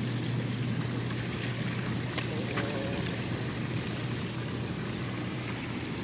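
Hot tub jets running: a steady pump hum under churning, bubbling water, with the spa's waterfall spout pouring.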